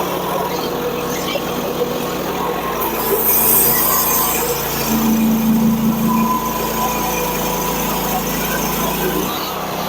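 Hud-Son portable bandsaw mill running, its gas engine driving the band blade through a log. The engine note is steady, louder with added hiss from about three seconds in, and the deepest part of the hum drops away near the end.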